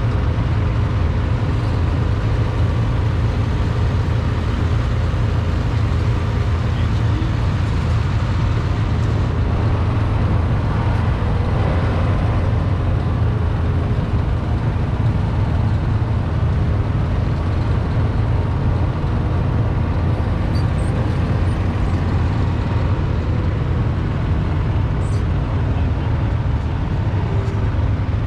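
Engine of a slow-moving small utility vehicle running steadily as it drives across grass, a constant low rumble.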